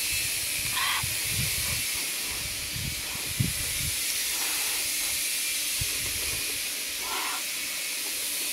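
A steady high-pitched hiss of outdoor background, with a few soft mouth sounds of someone chewing food eaten by hand, about a second in and again near the end.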